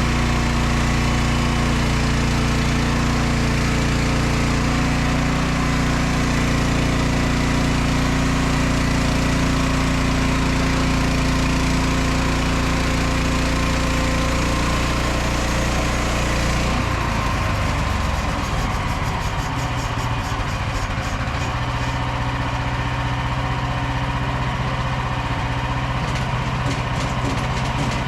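Small engine of a Frontier OS27 portable band sawmill running steadily under milling. About two-thirds of the way through, the sound changes: the hiss thins and the engine note shifts.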